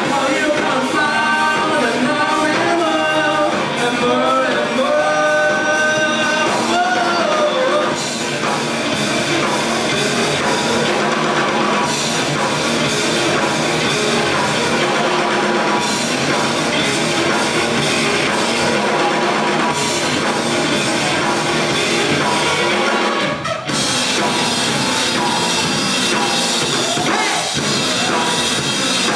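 Rock band playing with drums and guitars, a voice singing a melody over it for the first several seconds, then the band carrying on without vocals. There is a brief drop in the sound about two-thirds of the way through.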